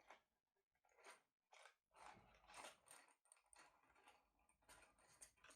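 Near silence, with a few faint rustles and light clicks of lock picks being handled.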